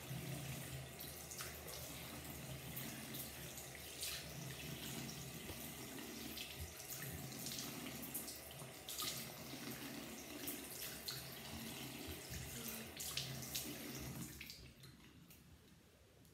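Bathroom sink tap running while hands scoop and splash water onto the face, rinsing off face wash. The running water stops near the end.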